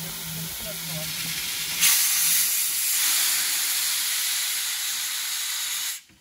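Steam locomotive venting steam at its front end: a steady hiss that jumps louder about two seconds in and cuts off sharply near the end.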